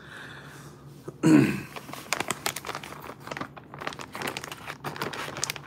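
Crinkling of a plastic soft-bait bag being handled in the hands, many quick little crackles. A short murmur from a man's voice about a second in.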